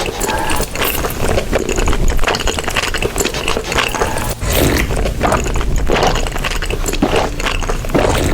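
Close-up eating sounds: chewing and crunching, with many quick wet clicks and crackles in a rapid, uneven run.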